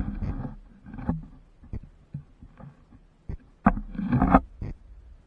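Muffled water rumble and knocks picked up by a submerged action camera, its housing bumping and water rushing past it. A louder cluster of knocks comes about three and a half to four and a half seconds in.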